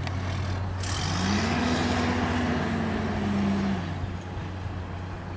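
A motor vehicle's engine over a steady low traffic rumble: its pitch climbs about a second in, holds, then drops and fades away near four seconds.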